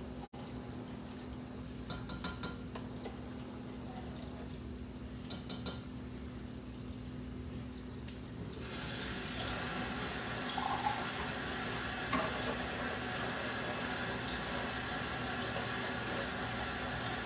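Kitchen tap turned on about halfway through and left running, a steady hiss of water. Before it, a low steady hum with a few light clinks of dishes.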